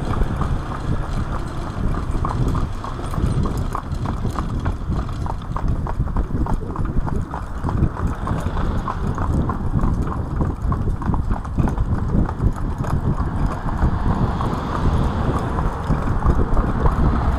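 Hooves of a pair of carriage-driving horses clip-clopping on a tarmac road, a quick, continuous run of strikes over a steady low rumble.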